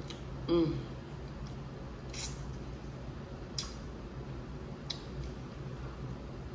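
Eating sounds from a seafood boil mukbang: a brief 'mm' of pleasure about half a second in, then three sharp wet clicks spaced about a second and a half apart, over a steady low hum.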